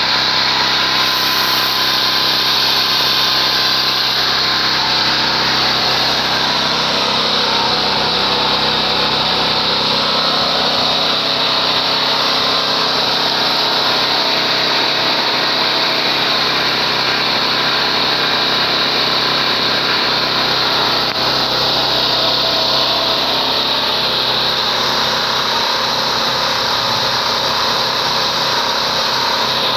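Predator portable generator's small engine running steadily at a constant speed.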